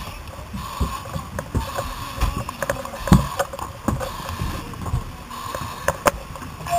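A firefighter's SCBA mask and regulator hissing with quick, rhythmic breaths, under irregular knocks, scrapes and clicks of gear bumping the helmet camera, the loudest knock about three seconds in, over a steady hum.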